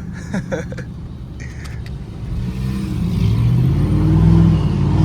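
Chevrolet Silverado High Country's gasoline V8 idling, then revved up about two seconds in and held at raised revs, louder through a 3-inch stainless exhaust cutout that has just been reopened by remote.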